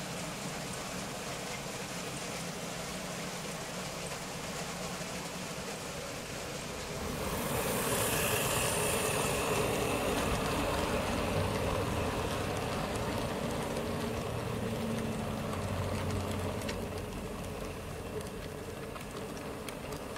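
Model train running on the layout's track, a steady rumbling run that grows louder about seven seconds in as a tank locomotive and its coaches pass close by, then fades near the end.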